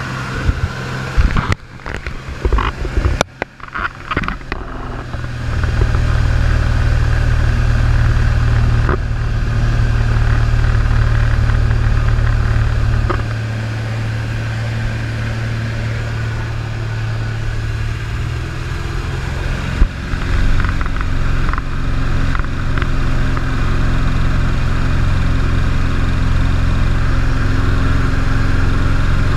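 The engine and propeller of a 1948 Stinson single-engine plane in flight, a steady low drone heard inside the cabin. The first few seconds are broken up by knocks and dropouts. The drone settles in about five seconds in, eases slightly around the middle and rises again later.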